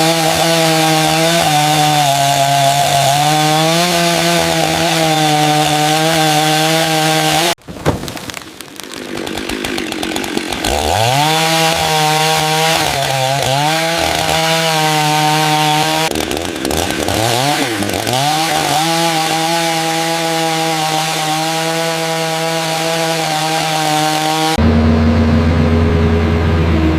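Chainsaw running at high revs, its pitch wavering and dipping as it cuts through wood. About a third of the way in it cuts off abruptly, then revs back up and bogs down twice before running steadily again; near the end a different, lower hum takes over.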